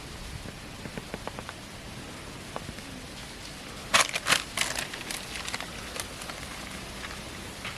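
Water pattering and splashing in a short cluster about four seconds in, over a steady outdoor background with faint scattered ticks.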